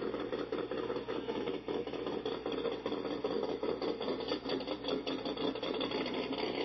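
Engines of a first-generation Ford Mustang convertible and a C1 Corvette running steadily as the cars roll slowly past at walking pace.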